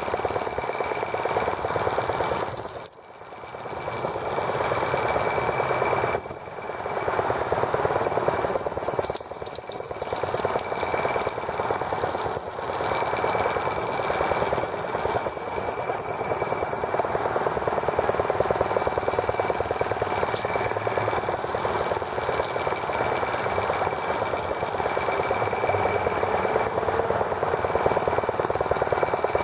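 Small gasoline model engine of a T26 toy tractor running with a fast, even rattle as the tractor drives. Its sound drops sharply about three seconds in and comes back within a second, with shorter dips a few times after.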